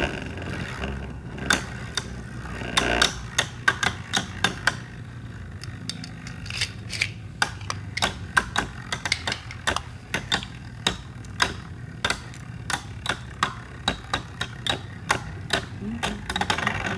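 Two Beyblade Burst spinning tops battling in a plastic stadium: rapid, irregular sharp clicks as the tops strike each other and the stadium walls, over a steady low whir.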